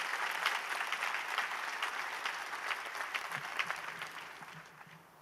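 Audience applauding, with many separate claps, fading out over the last second or so.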